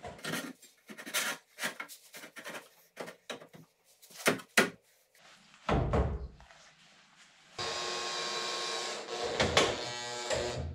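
Sheet-metal repair section knocking and clattering against the steel chassis rail as it is pushed and tapped into place. About seven and a half seconds in, a welder starts an arc and tack-welds the piece with a steady crackling hiss lasting a couple of seconds.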